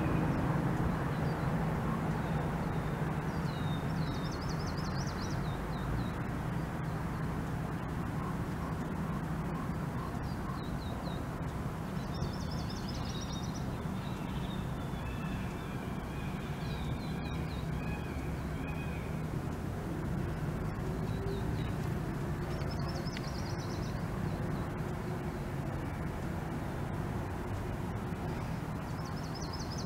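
Birds calling over a steady low background hum: short, rapid runs of high chattering notes every several seconds, with a few longer whistled notes in the middle.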